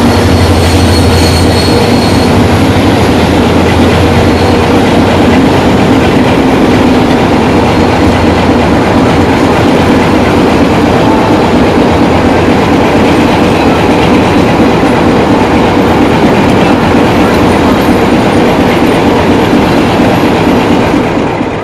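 Passenger train coaches rolling past close by: a loud, steady rumble and clatter of wheels on the rails. A low hum in the first few seconds fades as the head of the train moves away.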